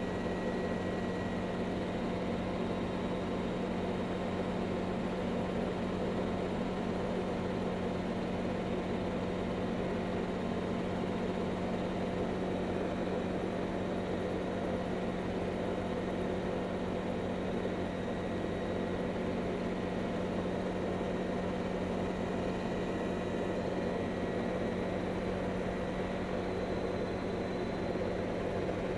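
CH-7 Kompress ultralight helicopter in flight, heard on board: its engine and rotor make a steady, unchanging drone with a strong low hum.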